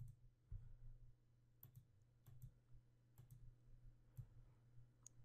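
Faint computer mouse button clicks, a dozen or so scattered irregularly, over a steady low hum.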